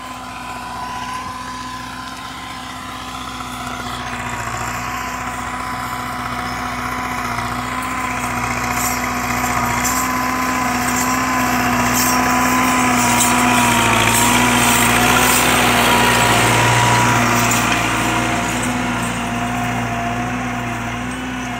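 Belarus 510 tractor's diesel engine running steadily under load as it pulls a tined cultivator through dry soil. It grows louder toward the middle, then eases off slightly near the end.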